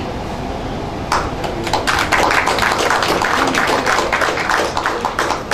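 Applause from a small group of people, starting about a second in and thinning out near the end, over a steady low rumble.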